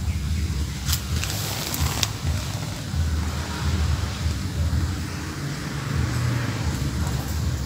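Low, uneven outdoor rumble, with a brief crackling hiss between about one and two seconds in.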